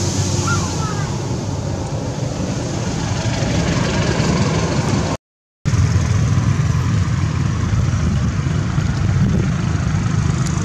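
Steady engine hum: a constant low drone over a hiss, broken by a complete dropout of about half a second roughly five seconds in.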